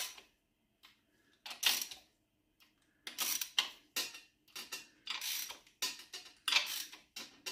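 Ratchet wrench on a socket extension clicking in short bursts, about eight in all, as the crankshaft main bearing cap bolts are snugged down to seat the bearing shells before final torquing.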